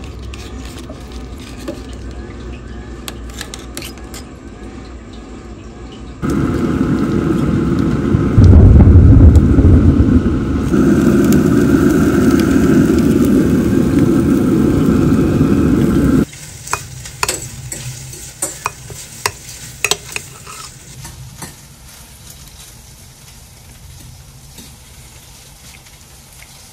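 Metal tongs clicking and scraping on a pellet grill's cooking grate as meat is placed and moved. A loud steady rushing noise, with a deep rumble partway through, starts and stops abruptly in the middle, and a run of sharp clicks follows.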